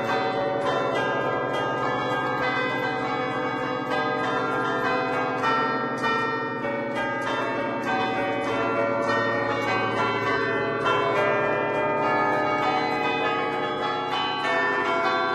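A ten-bell church peal in A, cast by Barigozzi in 1950, played by hand from a lever keyboard: quick successive strikes pick out a traditional folk tune (suono d'allegrezza), with the tones of many bells overlapping and ringing on. Heard close up, inside the belfry.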